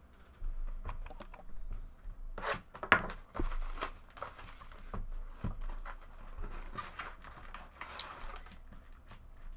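Plastic shrink-wrap being torn off a cardboard trading-card box and crinkled, with irregular rustles and sharp crackles, the sharpest about three seconds in. Near the end come the scrapes and rustles of foil card packs being pulled out of the box.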